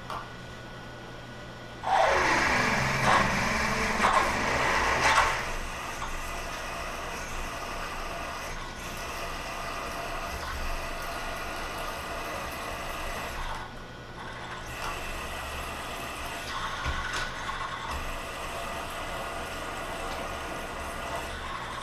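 Milling machine spindle running as a drill bores the tap-drill hole for a 5/8-inch thread in a metal plug. A much louder noisy rush starts about two seconds in and lasts about three seconds, then the steady running and cutting sound goes on.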